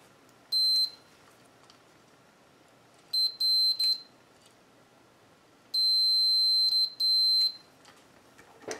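Multimeter continuity tester beeping with a high steady tone: one short beep, a few short beeps about three seconds in, then a longer beep near six seconds that drops out briefly before stopping. The probes are testing the battery compartment's spring contacts, and the beep comes and goes as the contact is made and broken.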